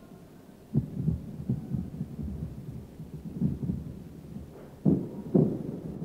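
Distant anti-aircraft gunfire in a 1941 archival recording: a string of dull, low booms, the two loudest about five seconds in, over a steady low rumble.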